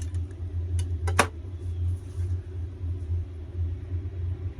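A steady low rumble, with a few sharp clicks and a rustle in the first second and a half as pieces of mail are handled.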